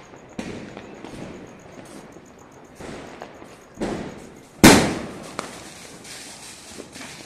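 Diwali fireworks and firecrackers going off across the city: a string of bangs and booms, the loudest a sharp bang about four and a half seconds in, followed by a long echoing tail.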